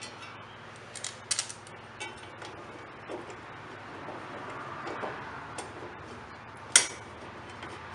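Scattered metallic clicks and clinks as a mower blade is fitted by hand onto the blade holder of a Honda HRC216 blade clutch, with a few sharper clicks about a second in and one loud clack near the end.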